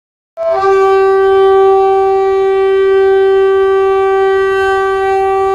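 A locomotive air horn sounds one long, loud blast on a single steady note, which begins with a brief higher note.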